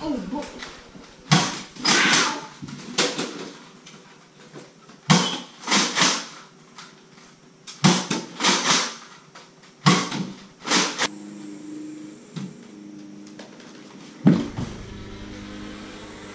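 Nerf blasters being fired during a dart fight: a string of about nine sharp pops and clatters in the first eleven seconds, some in quick pairs. After that a steady low hum sets in, with one more sharp pop near the end.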